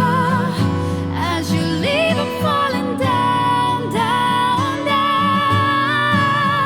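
Acoustic pop cover music: a woman's voice holding long notes with vibrato, without clear words, over acoustic guitar accompaniment.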